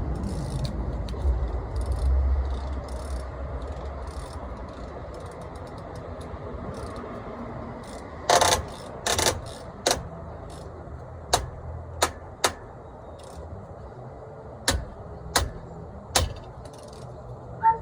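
Hammer blows on a truck's steer-axle brake drum, driving it on over a rust-crusted lip: about nine separate strikes, irregularly spaced, the two heaviest close together about eight and nine seconds in.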